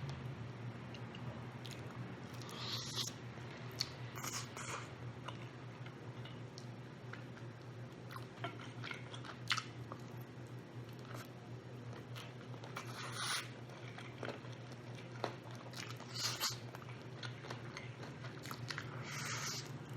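A person chewing and biting rotisserie chicken close to the microphone, with short smacking mouth sounds every few seconds over a steady low hum.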